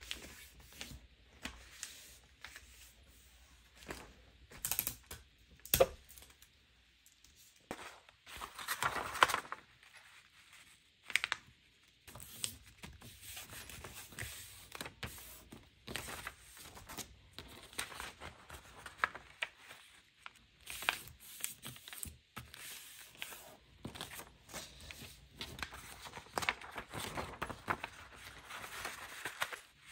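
Sheets of paper being folded and creased by hand: rustling and sliding, with scattered sharp taps, the loudest about six seconds in.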